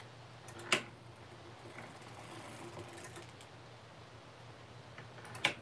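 Two short, sharp clicks about five seconds apart from a circular sock knitting machine being handled, over a faint steady low hum.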